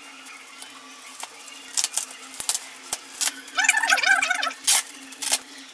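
Plastic courier wrapping on a boxed bag crinkling and crackling under the hands in several short sharp bursts, with a brief squeaky stretch about two-thirds of the way through, over a steady low hum.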